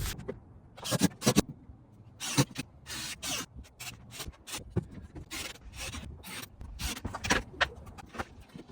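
Irregular scraping and rubbing strokes on wood, a series of short rasping passes of uneven length.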